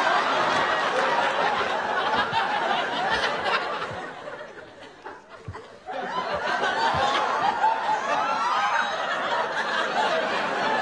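Studio audience laughing. The laughter dies down about four seconds in and breaks out again loudly about six seconds in.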